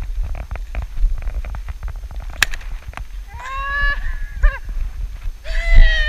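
Two drawn-out, high-pitched yells from a person, the second louder, over steady wind rumble on the GoPro microphone. Before them come scattered crunching and crackling noises and one sharp click.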